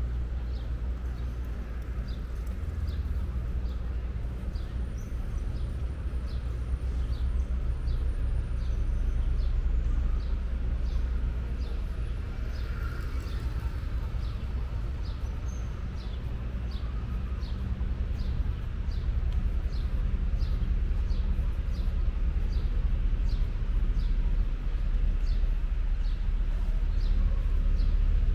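A bird calling a long, even series of short, downward-slurred chirps, about three every two seconds, over a steady low outdoor rumble.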